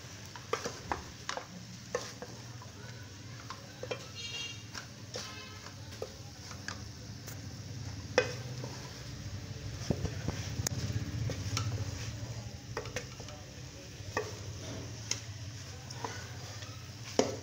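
A kitchen utensil stirring chicken filling in a hot pan, clicking and scraping against the pan in irregular strokes over a faint sizzle, as chopped vegetables are mixed into the cooking chicken.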